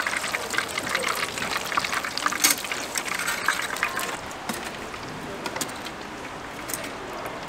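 Hot oil sizzling and crackling as battered vegetables and seafood deep-fry for Korean twigim, with sharp pops and ticks. The crackling is densest for the first four seconds and then thins to a softer sizzle.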